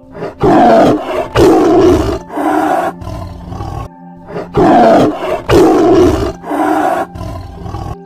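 Tiger roaring: two series of deep, rough roars, each of three loud calls followed by a softer fourth.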